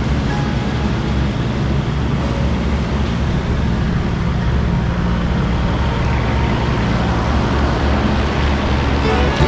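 Engine of a mowing machine running steadily at working speed, with the mower running.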